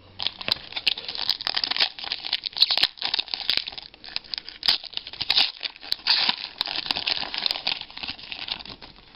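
A foil trading-card pack wrapper being torn open and crumpled by hand: a continuous irregular crinkling with a short lull about five and a half seconds in.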